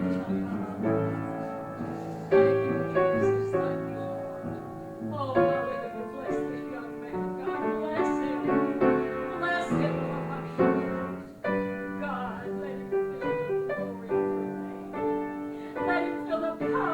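Piano playing slow, sustained chords with a melody line, each chord struck and left to ring.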